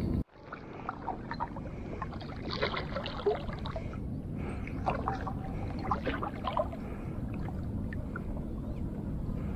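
Water gurgling and lapping, with scattered small clicks and short chirps. A louder low rumble cuts off suddenly about a quarter second in.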